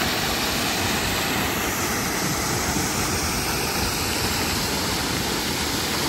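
Waterfall rushing, a very noisy, steady, even wash of water sound that holds at one level throughout.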